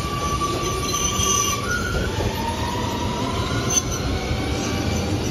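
Amsterdam metro train running past along the elevated track: a low rumble with high whining tones that shift in pitch about halfway through, and one sharp click near the middle.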